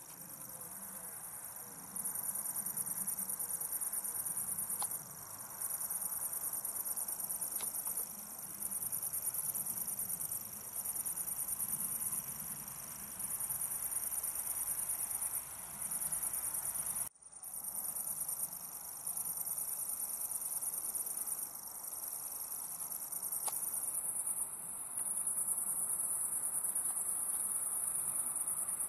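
Common grasshopper warbler (Feldschwirl) reeling: a continuous, high, insect-like trill held for several seconds at a time, with brief breaks between reels and one short gap about two-thirds of the way through.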